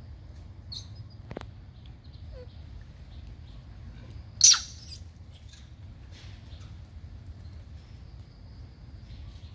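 A single short, high-pitched animal call about four and a half seconds in, over a steady low background rumble, with a faint click or two.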